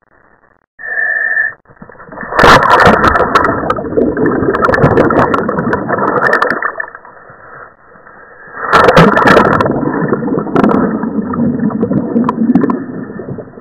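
Rushing, bubbling water as a scuba diver and camera go under the sea, in two long loud surges with crackling bubbles. The first starts about two seconds in and the second about nine seconds in.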